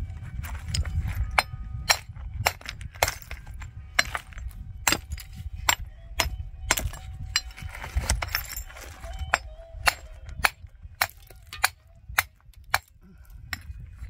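Irregular sharp knocks and clinks of hard objects striking each other, about one or two a second, over a low rumble.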